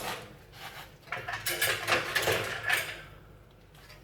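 Metal clattering and scraping as an old fridge condenser coil is handled and tried against the unit's casing: a sharp knock at the start, then about two seconds of rattling from about a second in.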